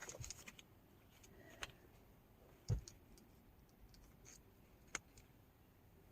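Cardboard box and packaging being handled, with a few scattered light clicks and knocks and one duller thump about two and a half seconds in.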